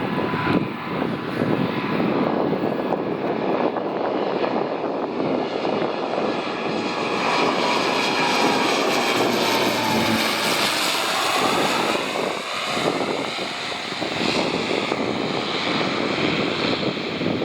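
Twin Garrett TPE331 turboprop engines of a BAe Jetstream 32 flying past as it comes in to land, a steady propeller and turbine drone whose whine bends and drops in pitch as it passes, about ten seconds in.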